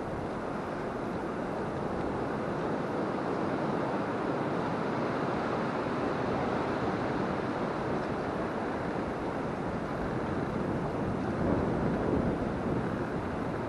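High wind rushing through the bare hardwood trees, a steady rush that swells briefly near the end.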